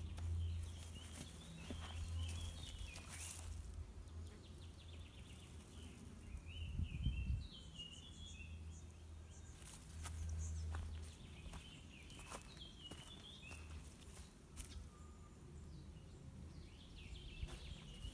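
Garden birds singing in short chirping phrases that recur every few seconds, over slow footsteps and a low rumble that comes and goes.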